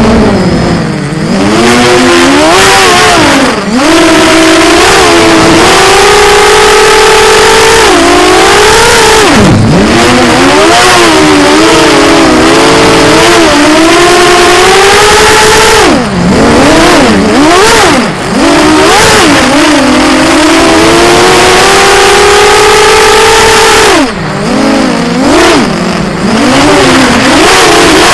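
Electric motors and propellers of a small FPV multirotor drone, heard from on board: a loud whine that rises and falls constantly with the throttle and drops sharply about half a dozen times as the throttle is chopped and punched again.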